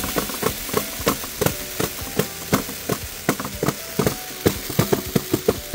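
Beads rattling and clicking in a child-operated spinning panel on playground equipment, a quick irregular stream of clicks, several a second, many with a short ringing note.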